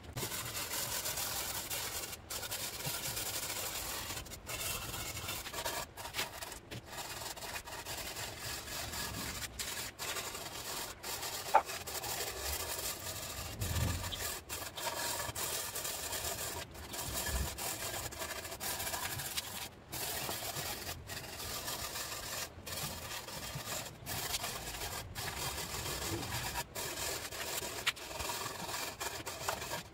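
Steel wire brush scrubbing paint stripper and softened paint off diamond-plate steel, in a long run of rasping strokes broken by many brief pauses. One sharp tap about midway.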